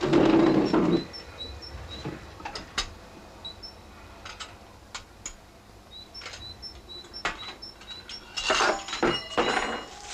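Plates and cutlery clinking and clattering as a breakfast table is cleared, with a short louder scrape at the start and a denser clatter near the end. Behind it a small bird repeats short, high chirps.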